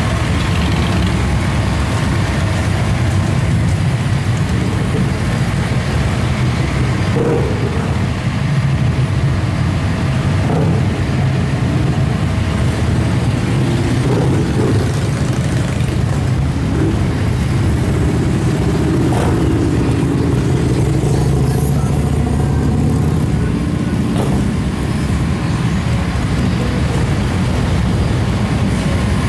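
Fire engine's diesel engine idling steadily close by, a constant deep rumble with no revving.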